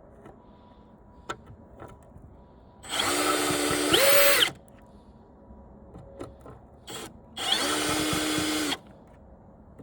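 Milwaukee cordless screw gun (drill/driver) run in two short bursts of about a second and a half each, backing screws out of an old TV's casing. The first burst rises in pitch near its end. Light clicks and taps come between the bursts.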